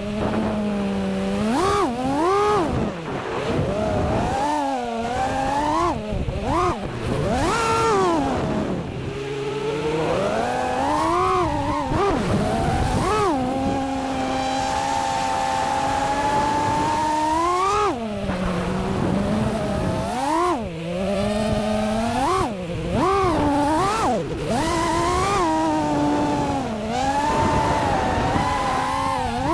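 FPV quadcopter's motors throttling up and down during freestyle flight, a whine that rises and falls in pitch every second or two, held steadier for a few seconds midway.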